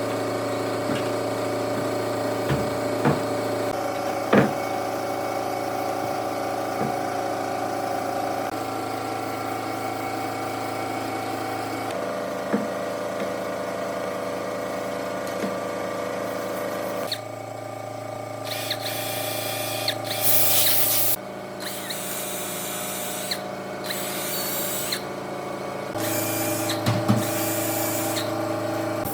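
An electric power tool's motor running steadily, its pitch shifting abruptly several times, with a few sharp knocks in the first seconds. Bursts of high hissing come in past the middle and again near the end.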